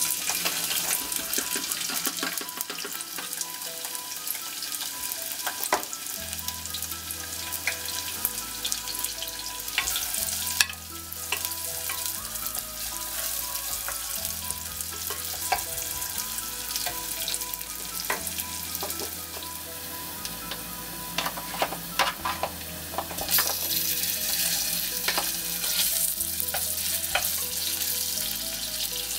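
Diced onion frying in a little oil in a pot, a steady crackling sizzle, with a wooden spoon stirring and scraping the pan bottom in many small knocks. The sizzle gets louder about two-thirds of the way through.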